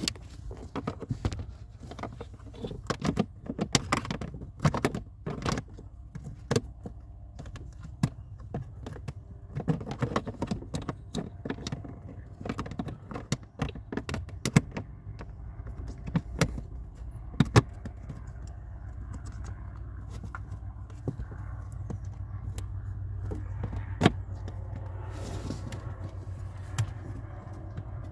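Clicks, taps and rattles of the Alfa Romeo Giulietta's plastic pollen filter cover being pushed back into place in the footwell, thickest in the first half, over a steady low hum.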